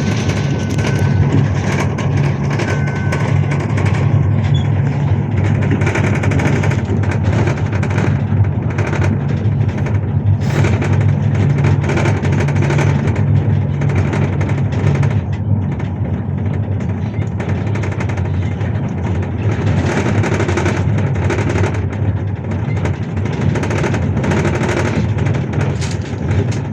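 Interior of a MAZ-215 articulated city bus under way: a steady low engine drone with constant rattling and clattering of the cabin. The drone is strongest in the first half and eases a little about halfway through.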